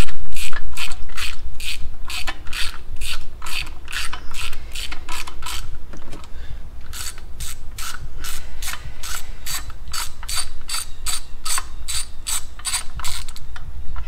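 Hand ratchet clicking steadily, about three clicks a second, as it loosens a long bolt holding a bracket on the engine's intake manifold, with a short pause about six seconds in.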